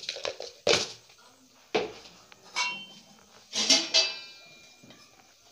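Kitchen containers being knocked and set down: about six sharp clatters over four seconds, the loudest near the end, some ringing briefly like a steel vessel.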